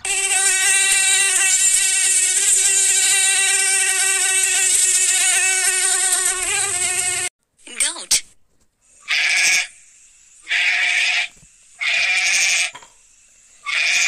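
A mosquito's steady high whine from its beating wings, which stops suddenly about seven seconds in. About two seconds later a goat bleats four times in short calls.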